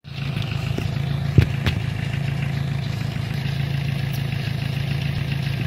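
Car engine fitted in a homemade motorcycle idling steadily, with three sharp clicks in the first two seconds, the middle one loudest.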